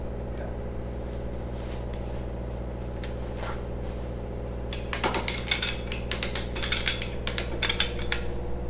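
A hoist's steel chain clinking and rattling in quick, irregular clicks for about three seconds, starting a little past halfway, as the chain is hauled to lift a load. A steady hum runs underneath.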